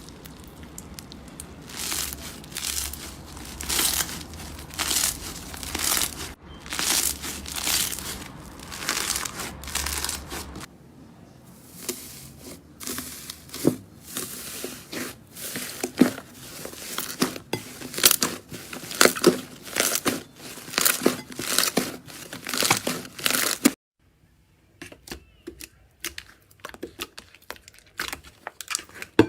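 Slime being squished and stretched by hand, with crinkly, crackling bursts about once a second. About ten seconds in the clip changes to denser sticky popping and clicking. Near the end it turns to quieter, sparser clicks.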